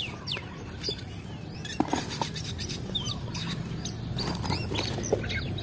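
Birds cheeping nearby with many short downward chirps, along with a few light knocks of hard plastic toys being handled and dropped into a plastic basket.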